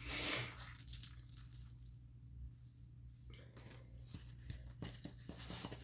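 Toy packaging being handled: a short rustling swish at the start, then, from about three seconds in, plastic crinkling with many small clicks and crackles as the tag is worked off.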